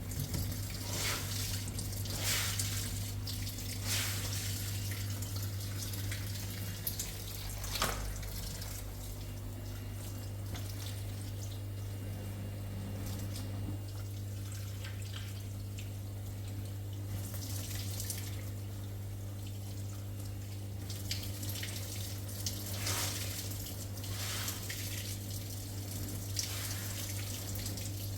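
Water running from a tap into a sink, with irregular splashes and clatter from washing at the sink. A steady low hum runs underneath.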